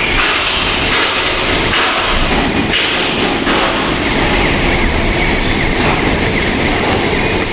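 Welding column-and-boom manipulator's motorized rotation running: a steady mechanical rumble and clatter, with a fast, even ticking that comes in about halfway through.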